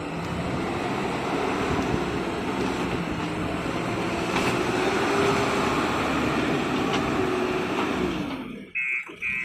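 Bulldozer engine running steadily under load, its pitch rising and falling a little, then dropping away about eight and a half seconds in.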